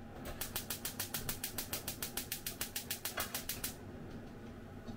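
A fast, even run of sharp hissing ticks, about seven a second, from the gas stove and the lidded frying pan of gyoza steaming on high heat. It starts just after the beginning and cuts off suddenly after about three and a half seconds.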